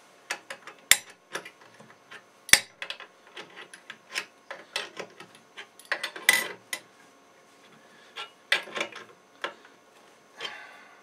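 Metal clicks, clinks and knocks from a Granberg Alaskan small log milling attachment as its frame is set to depth. There are two sharp knocks about one and two and a half seconds in, then scattered bursts of clinking and rubbing.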